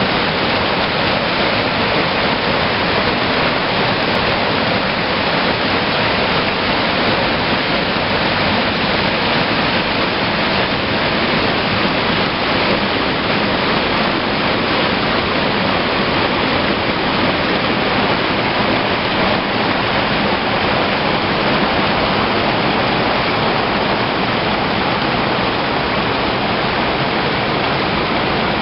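Spring water gushing from the river's source and cascading over rocks as white water in a narrow stream: a loud, steady rush.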